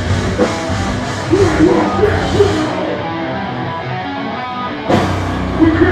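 Hardcore punk band playing live, with loud drums and distorted guitars. The cymbals drop out about three seconds in, and a sharp full-band hit comes near the end.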